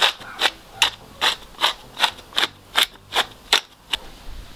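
Hand pepper mill grinding black pepper: a dry crunching click with each twist, about two and a half a second, stopping near the end.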